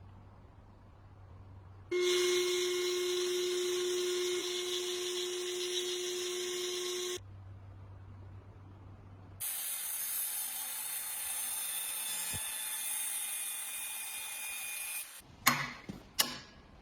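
A small electric power tool runs steadily for about five seconds, then cuts off. After a pause comes a stretch of high, even hissing, and a few sharp knocks near the end.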